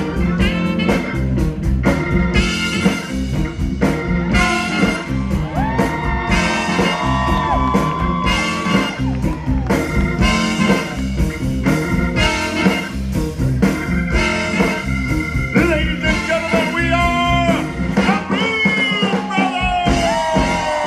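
Live blues band playing on an outdoor stage: drums keeping a steady beat under bass and a lead line that bends up and down in pitch.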